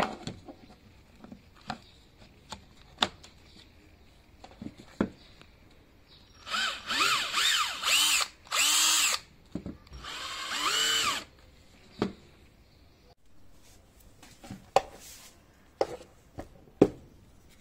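Parkside 12V cordless drill run in about five short trigger pulls, its motor whirring up and falling back in pitch each time. Sharp plastic clicks and knocks of batteries being handled and snapped into the tools come before and after the runs.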